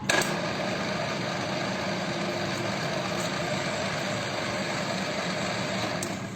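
A machine's engine running steadily, after a sharp click just as it begins.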